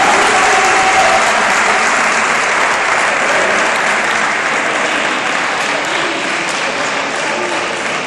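Audience applauding, a dense crackle of clapping that slowly fades away.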